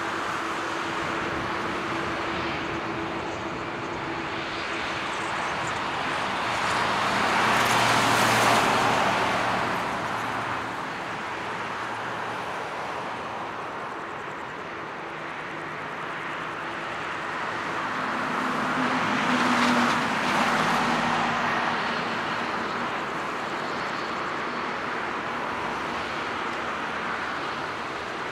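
Airbus A321-200 jet engines at taxi power, a steady distant rumble and hiss, with two louder swells that build and fade about 8 and 20 seconds in.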